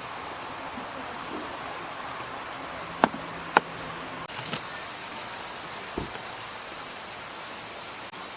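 Steady chorus of insects chirring. Two sharp clicks about half a second apart, around three seconds in, and a soft low thump near the end.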